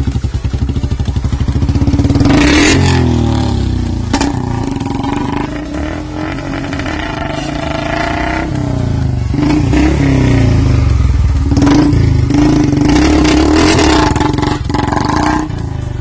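Royal Enfield Bullet 350's single-cylinder engine thumping slowly at first, then revving up as the bike rides off, with several loud exhaust pops cracking out between the revs.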